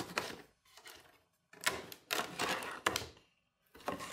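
A cardboard box being opened by hand: packing tape pulled off the top seam and the flaps folded back, in several short bursts of scraping and tearing.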